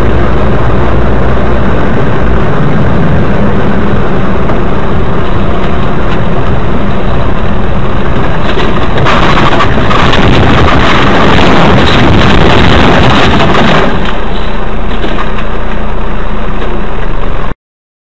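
A vehicle's engine and road noise, loud and steady, growing noisier for a few seconds in the middle, then cutting off suddenly near the end.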